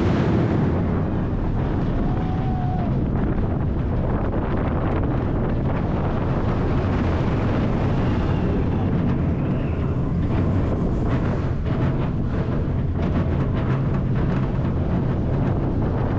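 Wind rushing over the microphone and a Bolliger & Mabillard dive coaster train's wheels rumbling steadily along the steel track at speed.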